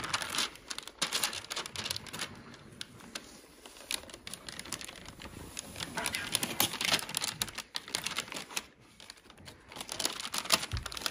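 Adhesive protective film being peeled off a flat plastic panel, giving an irregular run of crackles and small clicks as it comes away and crinkles.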